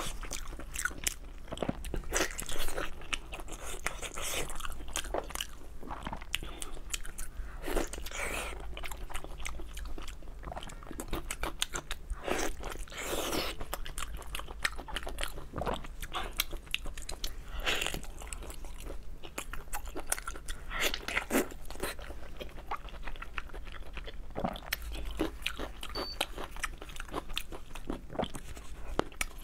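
Close-miked eating: a person biting, tearing and chewing big pieces of braised meat, with irregular sharp clicks and crackles of the bites and wet mouth sounds.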